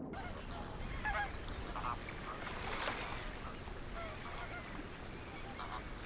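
American flamingos calling with faint, goose-like honks, several short calls scattered through, over a steady background hiss.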